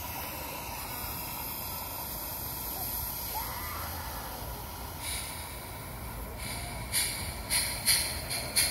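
Live-steam garden-railway model locomotive hissing steadily. From about seven seconds in, sharp exhaust chuffs start at roughly two a second.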